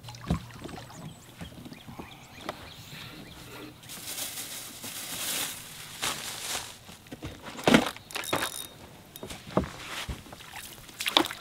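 Scattered knocks, clicks and shuffles of anglers moving about on a fishing boat's deck as a small fish is reeled in. About four to six seconds in there is a stretch of hissing noise, and near eight seconds comes the loudest sharp knock.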